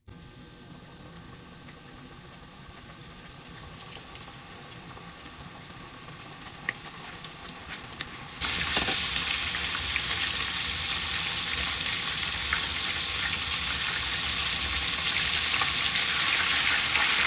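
Chicken pieces deep-frying in a pot of hot oil: a steady dense sizzle with scattered crackles and pops. The sizzle is fainter at first, then jumps suddenly much louder about eight seconds in.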